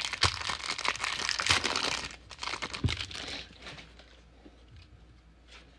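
Plastic trading-card pack wrapper crinkling and tearing as it is ripped open, dying away after about three seconds.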